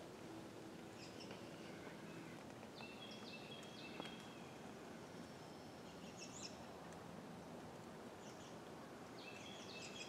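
Faint chirps and short calls of small birds in several scattered clusters, over quiet woodland background, with a single sharp click about four seconds in.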